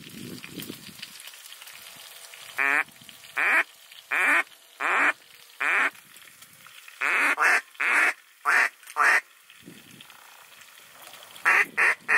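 Duck call blown in quacks: a string of five evenly spaced notes, then a quicker run of quacks, and another quick run near the end. Each note is loud and short.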